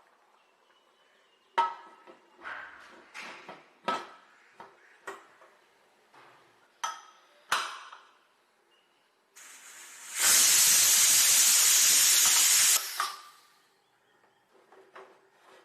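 Metal clinks and knocks from handling a pressure cooker, then a loud steady hiss of steam escaping for about three seconds that cuts off suddenly, as pressure is let out of the cooker. A few more light knocks follow.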